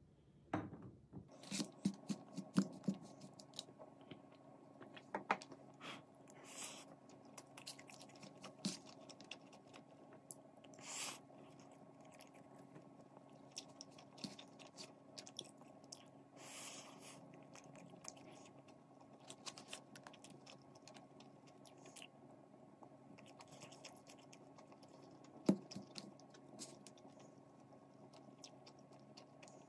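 Close-up eating sounds: a metal spoon clicking and scraping against a plastic takeout tray, and chewing of fried rice, with a faint steady hum underneath.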